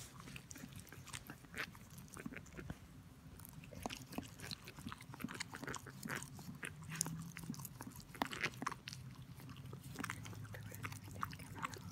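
Border collie mother licking and mouthing a newborn puppy to clean it just after birth: irregular wet licking and smacking clicks.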